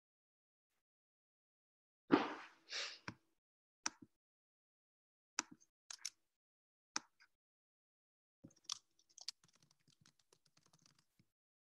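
Computer keyboard and mouse clicks: a short noisy rustle about two seconds in, then scattered single clicks and a quick run of light key taps near the end.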